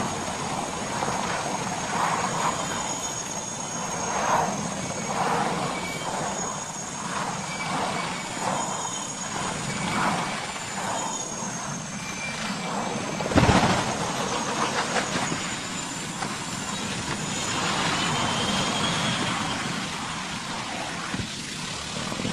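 Aircraft noise over a steady rushing sound, with a high wavering whine and a single sharp, loud bang about thirteen seconds in.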